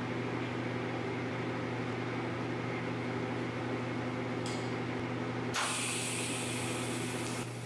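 Welding machine humming steadily while the welder sets up a TIG weld, with a hiss starting about two-thirds of the way in and cutting off shortly before the end.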